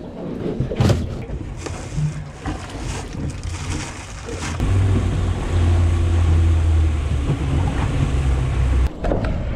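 Outboard motor on a small fishing boat running, with a single knock about a second in. From about halfway through the motor drones louder and steady, then cuts off sharply near the end.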